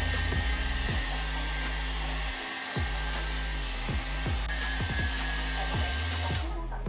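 Handheld hair dryer blowing a steady rushing hiss, switched off near the end, over background music with a steady bass beat.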